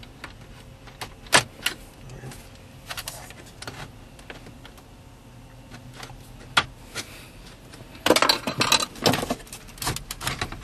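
Sharp plastic clicks and knocks as the release tabs are worked and the car radio is pulled out of the dashboard, with a burst of rattling and clattering near the end.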